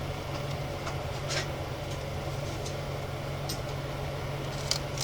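Steady low hum with a few faint clicks and light rustles of small packs and plastic tokens being handled.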